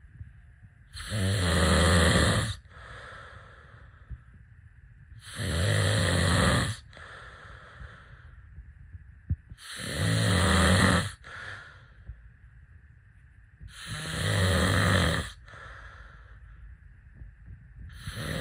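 A person snoring heavily. Four loud, low, rattling snores about four and a half seconds apart, each followed by a softer breath, with a fifth snore starting at the very end.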